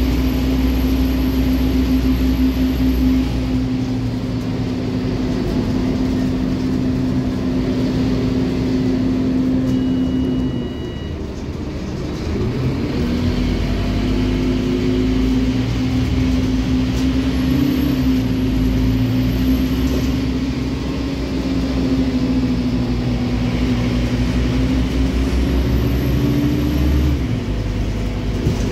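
Scania N310UA articulated bus heard from inside the cabin while driving: a steady engine drone under road noise. About ten seconds in, a short high beep sounds and the engine eases off for a couple of seconds, then it builds again as the bus pulls away.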